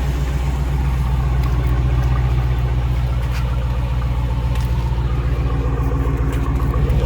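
Jeep Grand Cherokee's Hemi V8 idling steadily, its exhaust rumbling through straight pipe welded in where the rear resonators were cut out.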